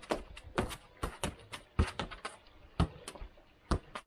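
Football being juggled in freestyle lower tricks: an irregular run of sharp taps of the ball against the shoes, a dozen or so in a few seconds, a couple of them louder.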